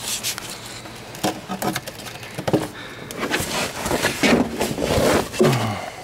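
Irregular clicks, scrapes and rustling handling noise, busier and louder in the second half.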